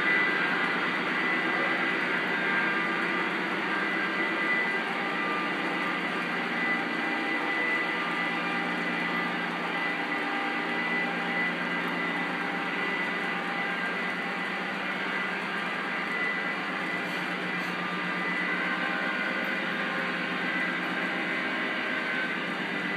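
Lionel O-gauge freight cars rolling at track speed over model railway track, making a steady rolling rumble of wheels on rails.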